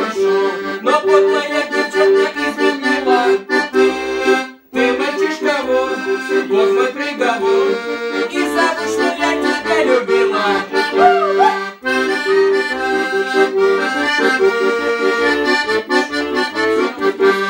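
Piano accordion playing an instrumental passage of sustained chords over a rhythmic bass accompaniment, breaking off briefly twice, about five and twelve seconds in.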